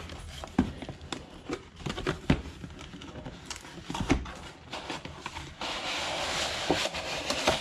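Cardboard packaging being handled: scattered light taps and knocks, then a steady scrape lasting about two seconds near the end as a small cardboard box is slid and worked open.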